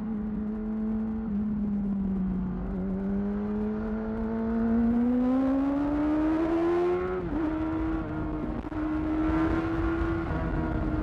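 2008 Yamaha R6's inline-four engine running through a Termignoni exhaust. The pitch climbs steadily as the bike accelerates, breaks briefly about seven seconds in, holds high, then falls away near the end.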